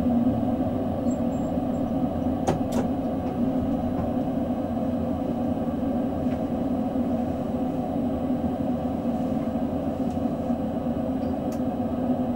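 Steady low hum and rumble inside the driver's cab of an S-Bahn electric multiple unit as it draws up and stands at a platform, with two short clicks about two and a half seconds in.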